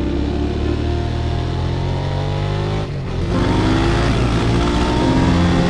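Motorcycle engine accelerating hard: the pitch rises, drops at an upshift about three seconds in, then rises again in the next gear.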